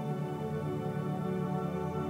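Calm ambient background music of sustained, steady tones.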